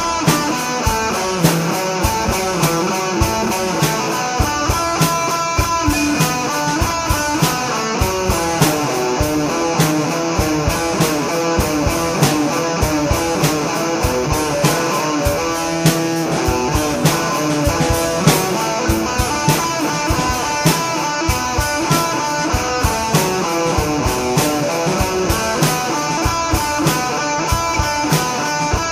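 Instrumental rock music: electric guitar played over a drum kit keeping a steady beat.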